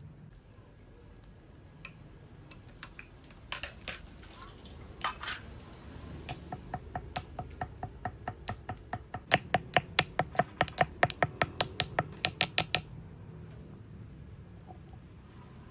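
A fast, even run of sharp taps, about five a second, that grows much louder halfway through and then stops abruptly, after a few scattered knocks.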